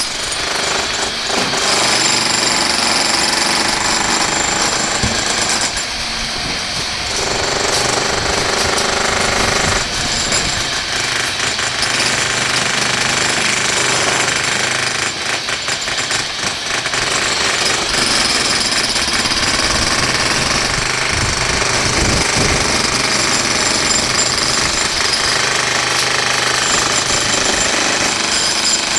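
Demolition breaker hammering continuously with rapid, repeated blows, easing off briefly twice.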